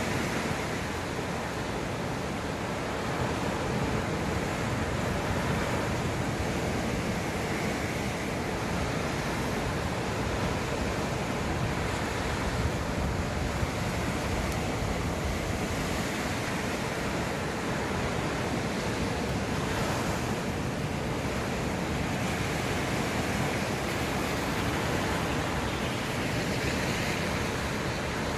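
Sea waves washing onto a beach, a steady rush of surf that swells and eases gently.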